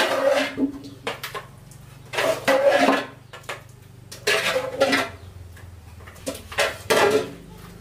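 A metal scoop scraping and clanking against the inside of a large metal cooking pot as steaming contents are scooped out, in about four bouts of clatter roughly every two seconds.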